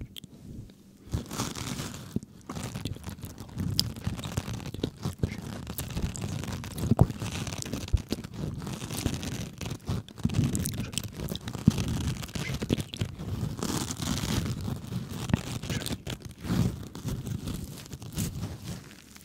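Close-miked ASMR trigger sounds: a continuous irregular crackling and scrunching, dotted with many small sharp clicks.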